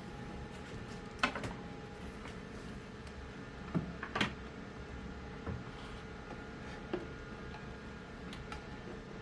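A handful of light clicks and knocks from hardware being handled, the sharpest about a second in and about four seconds in, over a steady low electrical hum.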